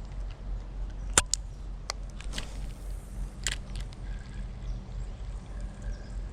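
Steady low rumble of distant road traffic, with a few sharp clicks scattered through it, the loudest about a second in.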